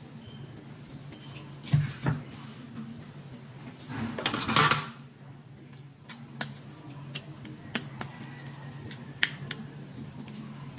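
Small plastic toys and packaging being handled: a scatter of sharp clicks and taps, with a brief rustle about four seconds in, over a steady low hum.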